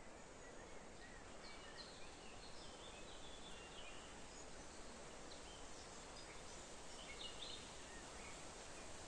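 Faint birdsong: short chirping phrases from small birds, in a cluster through the first few seconds and again near the end, over a steady low hiss.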